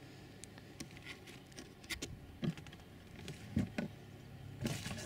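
Footsteps crunching through dry leaf litter and small twigs on a woodland floor, about eight uneven steps.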